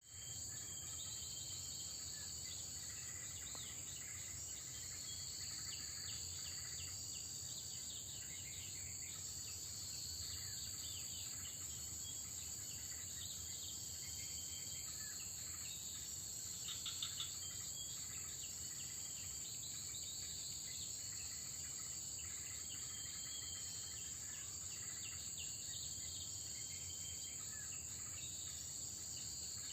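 Steady high-pitched drone of insects such as crickets, with scattered short bird chirps over it and a brief louder burst of chirping about 17 seconds in.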